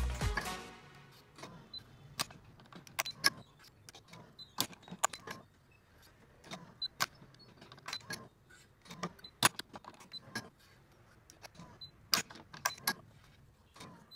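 Badminton racket being strung: irregular sharp clicks and taps of the string, clamps and frame as the main strings are threaded and pulled, some loud, some faint. Background music fades out within the first second.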